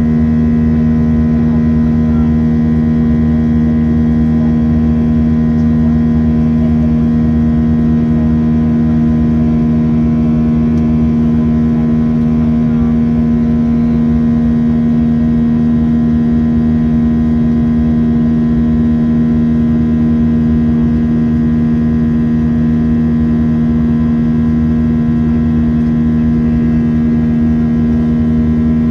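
Boeing 737 jet engine heard inside the cabin beside the wing during the climb: a steady drone with a strong, even buzz that holds the same pitch and level throughout.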